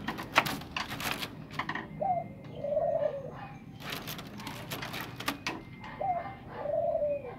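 Red junglefowl rooster flapping its wings in a wire cage: two bursts of sharp wingbeats. Between them, twice, comes a bird call of a short note followed by a longer arched note.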